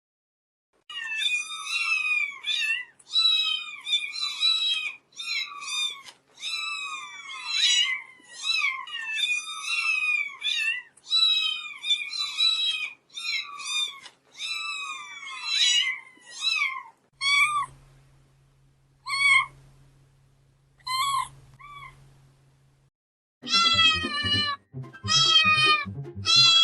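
Kittens meowing: rapid, high-pitched cries that slide down in pitch, several a second, thinning out to single calls over a low hum in the last third. Near the end a different, louder series of meows begins with a deeper rumble under it.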